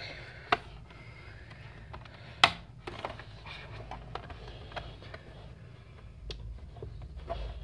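Plastic clips of an Avita Essential 14 laptop's bottom cover clicking as the panel is pried and pressed loose. There is a sharp click about half a second in and a louder one about two and a half seconds in, then scattered fainter clicks and handling noise.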